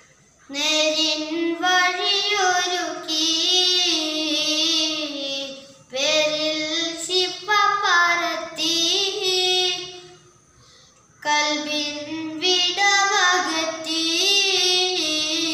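A young boy singing a madh (Islamic devotional praise song) unaccompanied, in long held melodic phrases, with a pause of about a second before the last phrase.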